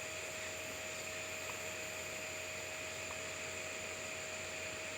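Steady low hiss with an electrical hum and a faint constant whine, and two faint ticks in the middle.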